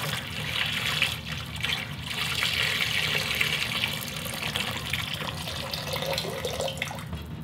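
A stream of water pouring into the stainless-steel kettle of a Brewzilla 65L all-in-one brewing system, splashing steadily into the shallow water at the bottom as the kettle fills.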